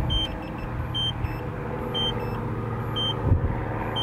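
DJI FPV drone system warning beeps: short high beeps about once a second, each trailed by fainter pips, over a steady low hum. The pilot takes them for the alert that a piloted aircraft is nearby.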